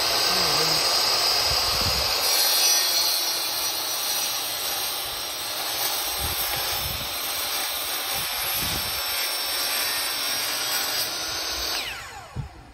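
Electric miter saw running continuously as it cuts through a thick wooden post, then winding down with a falling pitch near the end once the trigger is released.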